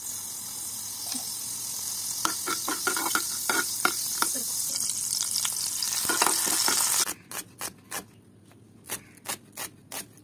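Oil sizzling in a pan as curry leaves and seeds fry for a poha tempering, with a metal spatula stirring and clicking against the pan. About seven seconds in the sizzle cuts off and a knife chops onion on a board in separate sharp strokes.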